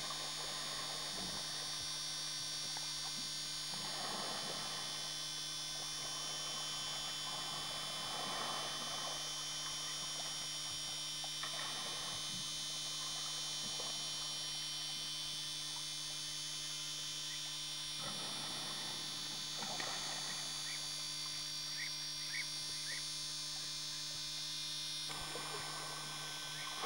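Steady electrical hum with a high whine, the old camcorder recording's own noise, under soft intermittent splashing of water from an African elephant wading in a river.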